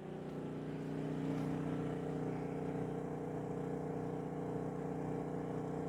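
GENMAX GM3500iAED inverter generator running with a steady hum, under about 1,100 watts of load from one RV air conditioner.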